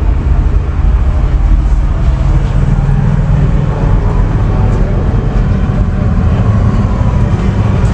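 Heavy diesel truck engine idling: a steady, loud low rumble.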